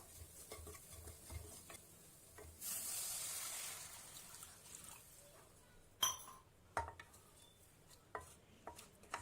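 Water poured into a hot oiled pan of sautéed garlic, carrot and spices hisses for about two seconds a few seconds in, then dies away. A few light clinks against the pan follow.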